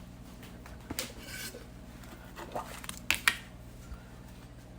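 A few light kitchen clicks and knocks from seasoning the pan, with two sharp knocks close together a little past the middle, over a faint steady low hum.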